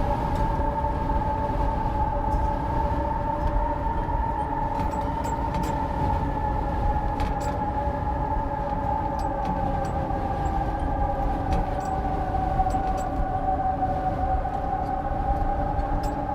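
Wind howling: a steady low rumble under a held, slowly wavering whistle-like tone, with faint scattered ticks.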